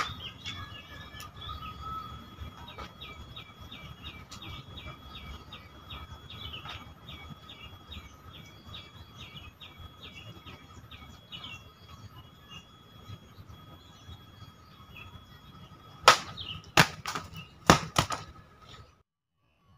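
Katana slashing through a banana trunk: a quick run of four or five sharp swishing strikes near the end, the loudest sounds here. Before them, a bird chirps over and over, short calls about two a second, over a steady high tone.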